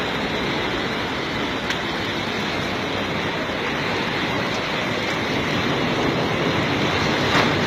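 Steady rushing noise of muddy floodwater running fast down a street.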